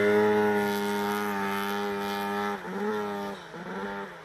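Polaris snowmobile engine running at steady high revs while the sled rides away. Its pitch dips briefly twice past the middle, and the sound fades with distance.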